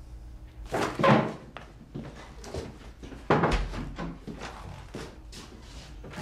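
A series of knocks and thuds in a small room: a loud thump about a second in and another just after three seconds, with lighter knocks about every half second between and after.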